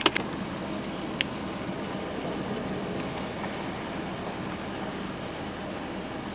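The 3.8-litre V6 engine of a 2002 Dodge Grand Caravan idling with a steady low hum, with a click at the start and a short high beep about a second in.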